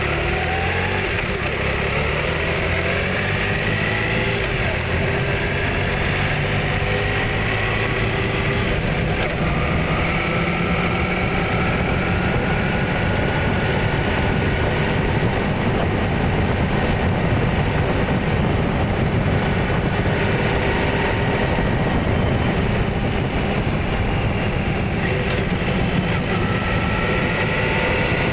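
A vehicle being driven along a road: its engine runs steadily, its pitch slowly rising and falling several times, under heavy wind and road rumble.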